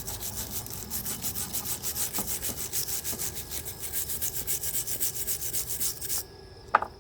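Wire brush scrubbing a fresh MIG weld bead in fast, even back-and-forth strokes, cleaning off the weld before it is inspected. The scrubbing stops about six seconds in and is followed by a single short click.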